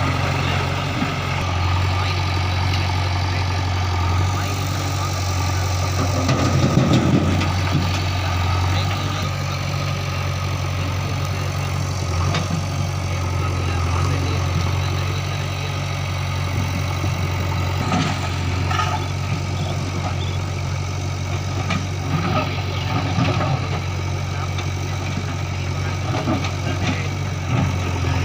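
Diesel engine of earthmoving machinery running steadily at a low idle-like hum, with scattered short knocks and a brief louder burst about seven seconds in.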